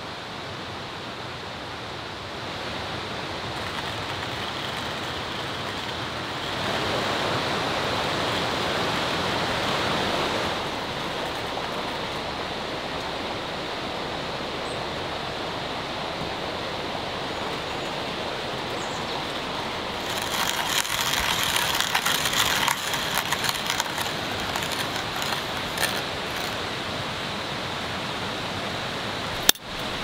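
Steady rush of a mountain valley stream, louder for a few seconds from about six seconds in. From about twenty seconds in, several seconds of crackling and small clicks sound over it.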